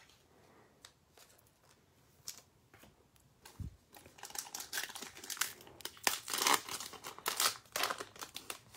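A foil Panini Prizm Basketball retail pack crinkling and tearing as it is ripped open by hand. A soft thump comes about three and a half seconds in, then the crackling runs from about four seconds on and is loudest around six seconds.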